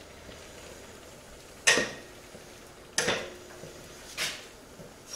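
Three sharp knocks and clacks about a second apart while a motorcycle is handled in a garage, each with a short ring after it.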